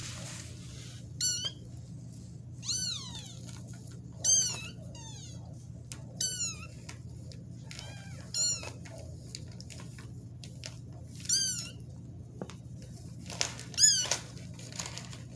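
Young kittens meowing: about seven short, high-pitched mews a second or two apart, each rising then falling in pitch, over a steady low hum.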